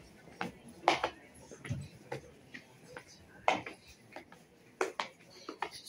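Sharp clicks and knocks at an uneven pace, about two a second, over a quiet background.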